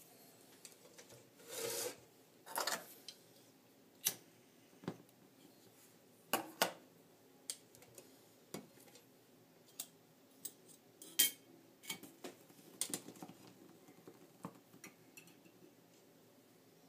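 Light metal clinks, taps and a couple of short scrapes from a metal cooking pot, its lid, a wire pot stand and a small aluminium-can alcohol stove being handled and set down on a table.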